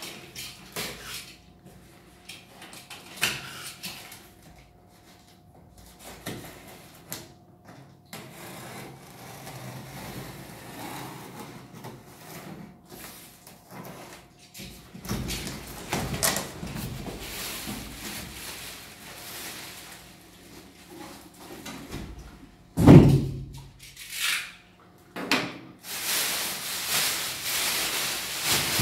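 Cardboard packaging being opened: a utility knife cutting packing tape, with scattered scrapes and knocks of cardboard being handled. About two-thirds of the way in there is one loud thump, and near the end a steady crinkling rustle of plastic wrap being pulled off the unit.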